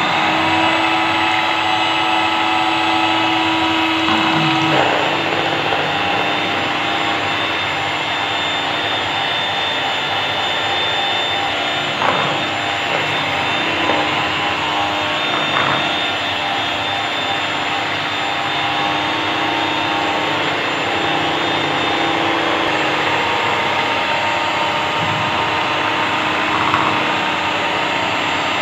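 Electric mixer running steadily, its beaters whipping cream in a bowl towards doubling in volume, with a few brief knocks along the way.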